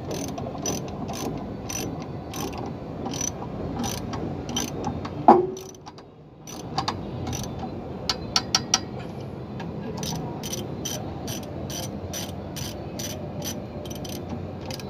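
Hand ratchet wrench clicking in steady, evenly spaced strokes, about two to three a second, as it runs down the bolts of a new clutch pressure plate on the flywheel. About five seconds in comes one loud metallic knock with a short ring, then a brief lull and a quick cluster of clicks before the steady ratcheting resumes.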